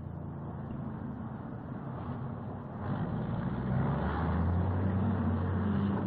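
Heavy diesel engine of a large earth-moving scraper running steadily, growing louder about halfway through.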